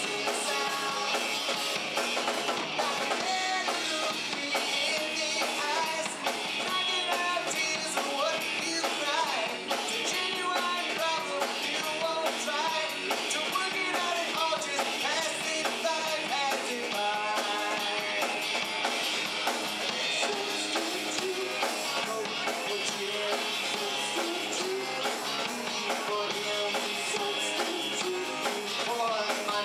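Live rock band playing with electric guitar, electric bass guitar and drum kit.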